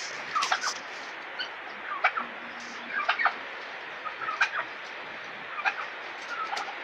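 Domestic fowl clucking: short, sharp calls in clusters of two or three, about once a second, over a steady hiss.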